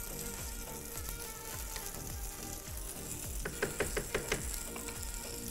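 Vegetables and lemon sizzling in a hot pan, with a steady hiss, over background music with a beat. A quick run of about five sharp clicks comes a little past the middle.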